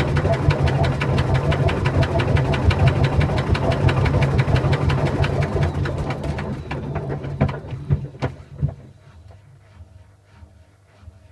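Washing machine running loudly with a low hum and a rapid, steady knocking, then winding down with a few last knocks and going quiet about nine seconds in.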